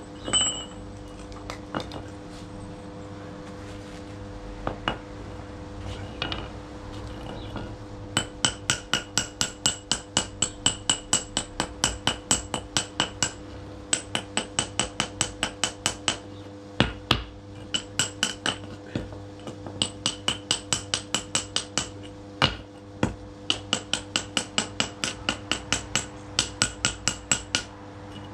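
DeWalt hammer striking repeatedly, about four blows a second in runs of several seconds broken by short pauses, each blow with a bright metallic ring. Before the runs start there are a few scattered single knocks.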